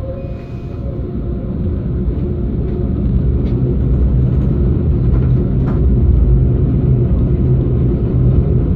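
Passenger train running, a steady low rumble heard from inside the carriage, growing louder over the first few seconds.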